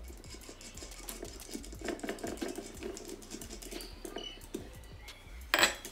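Stainless steel paper towel holder being assembled by hand: a run of quick small metal clicks and rubbing as the parts are turned and fitted together, with one louder metal clank near the end.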